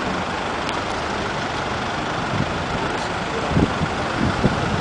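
Road traffic: minibuses and a pickup truck driving past, a steady wash of engine and tyre noise. A few short low thumps come near the end.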